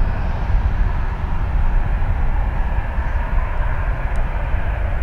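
Jet airliner engines making a steady, loud rumble.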